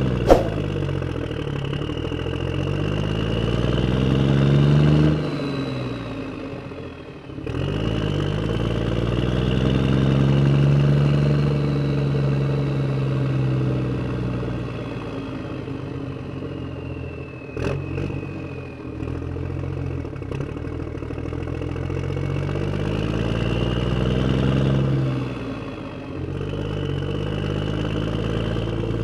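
Truck engine revving up and dropping back in several long swells, with a sharp click just after the start and another about two-thirds of the way through.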